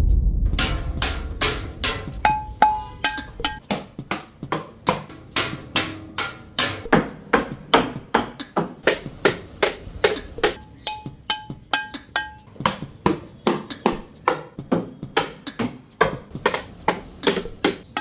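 A wooden spatula beating a steady rhythm on household objects, a plastic appliance and a metal frying pan, played like a drum at about three strikes a second. In a few stretches the strikes carry a short pitched ring.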